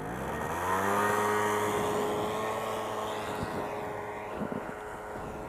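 Moped scooter engine accelerating hard as it pulls away: its note climbs over the first second or so, then holds steady and slowly fades with distance, over wind noise.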